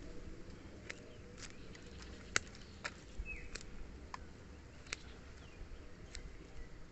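Hand pruning shears snipping thin serut twigs: about eight short, sharp clicks at irregular intervals.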